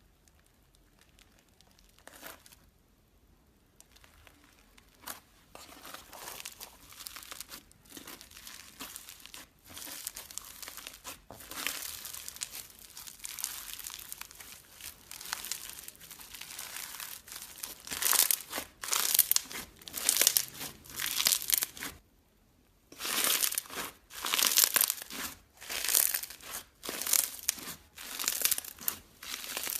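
Crunchy slime being squeezed and pressed, crackling and crinkling. From a little past the middle it comes in loud, regular squeezes about one a second, with a short pause between two runs of them.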